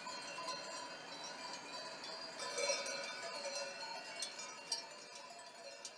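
Many metal bells ringing irregularly, their clear tones overlapping and fading out toward the end.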